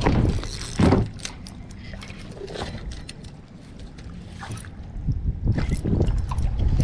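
Two thumps on a fiberglass boat deck as a person climbs onto the bow hatch, one at the start and one about a second in. Then comes quieter handling noise, and a low rumble that grows louder near the end.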